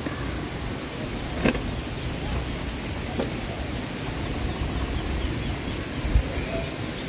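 Steady high-pitched insect chorus over a low rumble, with a sharp click about a second and a half in and a short low thump near the end.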